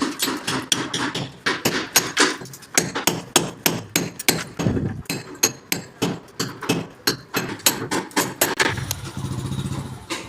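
Rapid, regular hammer blows, about three or four a second, as in plumbing installation work such as cutting into masonry for fittings. Near the end a small engine runs steadily for about a second, as of a passing motorcycle.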